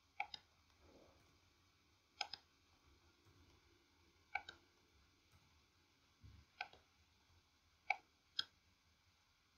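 Faint, isolated clicks of a computer keyboard and mouse, about seven in all, some in close pairs, spaced a second or two apart, as commas are typed at the ends of lines of code.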